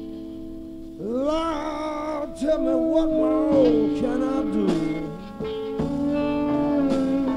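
Live blues band playing a slow blues. About a second in, a lead guitar line enters, gliding and bending between long held notes.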